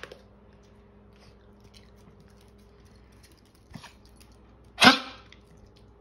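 Small dog coughing: a faint short cough about four seconds in, then one loud, harsh cough about a second later. It is one of a run of bad coughing episodes that the owner wonders may be a heart problem.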